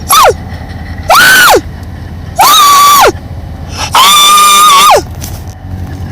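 An animal crying out four times, each call longer than the one before. Each call rises, holds a high, steady pitch, then drops away at the end.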